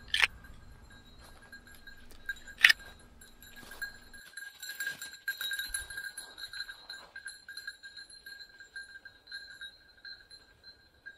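A bird dog's collar bell ringing on and off as the dog runs through the cover. Two sharp cracks come at the start and a couple of seconds later, the second the loudest sound.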